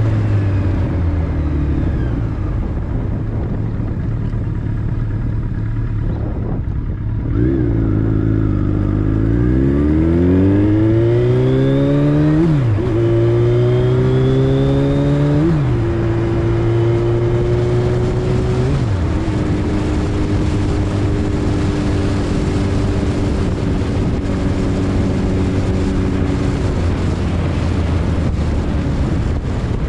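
Vehicle engine running steadily low, then accelerating, its pitch climbing and dropping sharply at three gear changes, before settling to a steady cruise.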